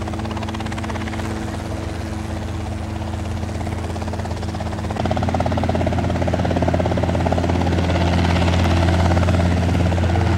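Small two-seat helicopter running with a steady rotor chop and engine hum. About halfway through it gets louder as power comes up and it lifts off into a low hover.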